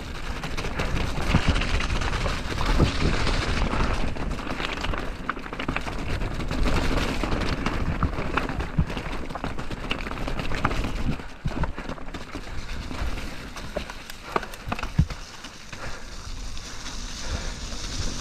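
Mountain bike descending a wet, rocky trail at speed: a steady rush of tyres through mud and wind, with frequent knocks and rattles as the wheels hit stones.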